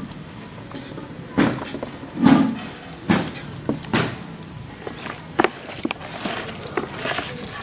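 Hand mixing cauliflower florets through thick masala paste on a metal plate, with irregular knocks and clatters of florets and plate. The loudest sound is a short low one a little over two seconds in.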